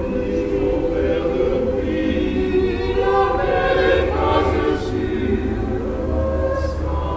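Mixed choir of women's and men's voices singing unaccompanied in sustained chords. A few sung consonants hiss briefly, about four and a half seconds in and again near the end.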